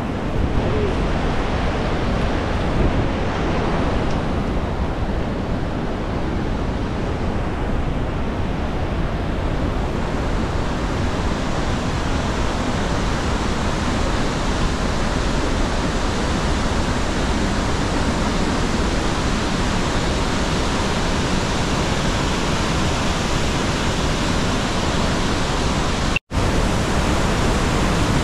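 Steady, dense rush of Niagara Falls' water pouring down, an even unbroken noise with no let-up. It drops out for a split second near the end.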